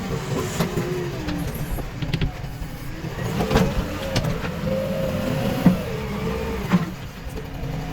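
Diesel engine of a JCB 3DX backhoe loader working under load, its pitch rising and falling as the hydraulics work. A few sharp knocks sound over it, the loudest about two-thirds of the way through.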